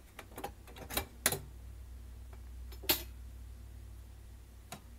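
Light metallic clicks and clinks as a thin sheet-metal shield is handled and lifted off a VCR's tape-mechanism chassis: a cluster in the first second and a half, a sharper click about 3 s in and one more near the end, over a faint low rumble.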